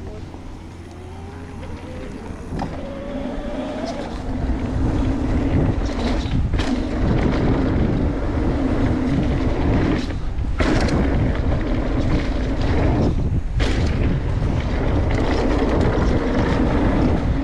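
Wind rushing over a GoPro action camera's microphone and mountain-bike tyres rumbling on a dirt trail. It builds as the bike gathers speed downhill over the first few seconds, then holds steady and loud, with three brief drops.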